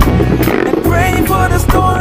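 Background music with a steady beat, heavy bass and a melodic line that bends in pitch.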